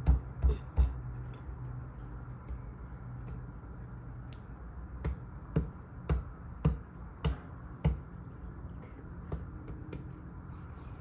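Meat cleaver chopping through a pig carcass's rib cage on a wooden table. Three quick chops come first, then after a pause a run of about six chops, roughly two a second.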